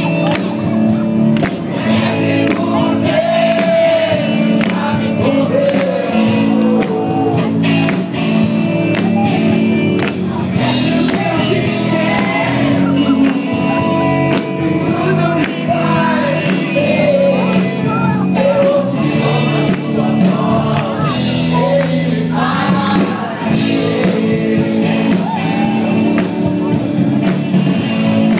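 Live rock band playing loudly with a lead singer, heard from among the audience.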